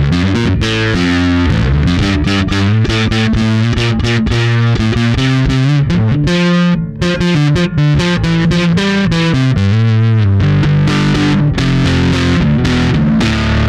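Electric bass played through an EarthQuaker Devices Blumes Low Signal Shredder overdrive in its LED-clipping mode, gain and tone at noon: a busy run of distorted plucked notes with a brief break about seven seconds in, then held notes ringing out near the end.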